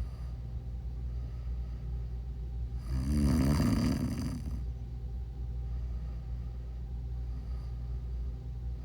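A sleeping person snoring: one loud, rough snore about three seconds in, lasting under two seconds, over a steady low rumble.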